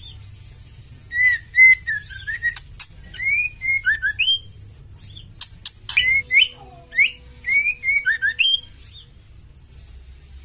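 Female white-rumped shama calling in quick runs of short whistled notes and sharp clicks, in two bursts with a short pause between, the 'fighter' call used to stir male shamas into song.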